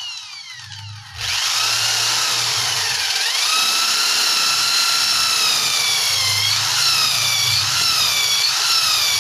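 Corded electric drill winding down in the first second, then starting again about a second in and running with a high whine as its bit cuts into a wooden plank; the pitch dips and wavers as the bit bites into the wood.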